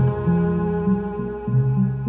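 Background music: ambient electronic track with sustained synth chords over a moving bass line.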